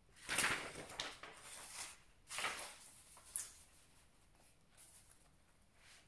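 Loose sheets of printed paper rustling as they are handled and turned over, in several short bursts, with a small sharp tap about three seconds in.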